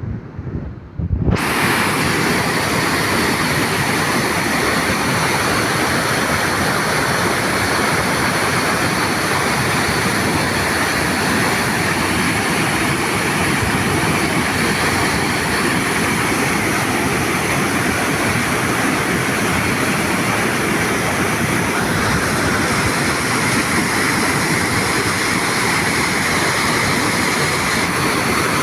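Hot-spring water rushing in a constant, steady roar that starts abruptly about a second in. Just before it come a few brief low rumbles.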